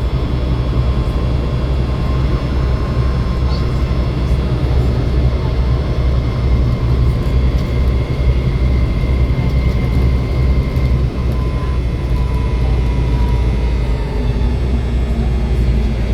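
Volvo B7 bus running: a deep, steady engine rumble with high whining tones over it. The higher whine stops about two-thirds of the way through, and the lower one sags slightly in pitch and fades soon after.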